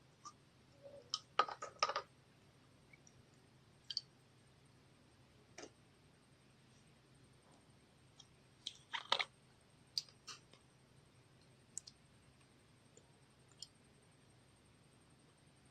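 Putty slime being pressed and mixed by hand, giving scattered sticky clicks and small pops. They come in two quick clusters, about a second and a half in and about nine seconds in, with single clicks between.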